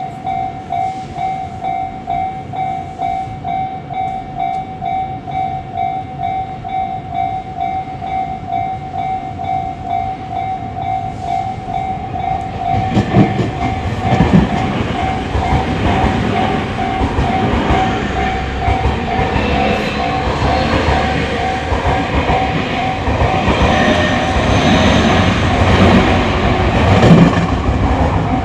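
Japanese level-crossing warning bell ringing in rapid, evenly repeated electronic dings. About 13 seconds in, a Tobu Tojo Line electric train starts passing through the crossing, its wheels clattering over the rail joints, and grows louder, nearly drowning the bell.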